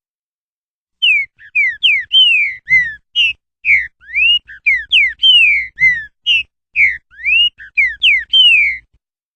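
Green-winged saltator (trinca-ferro) singing its 'roquinho' song: a long, loud run of clear, slurred whistled notes that rise and fall, starting about a second in.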